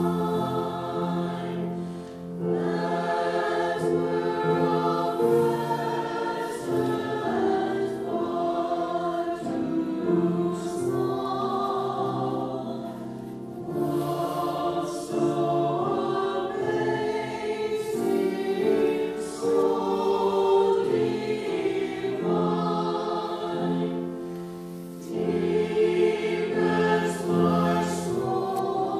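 Choir singing a cantata in long sustained phrases, with short breaks between phrases about 2, 13 and 24 seconds in.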